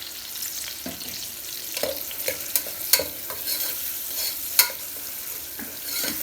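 Onion, crushed garlic and turmeric sizzling in hot oil in a pressure cooker while being stirred, with a few sharp knocks of the utensil against the pot; the loudest come about three and four and a half seconds in.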